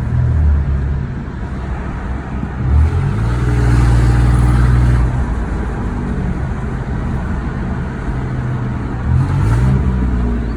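Car engine running and revving. Its pitch climbs about three seconds in, holds, and then climbs again near the end.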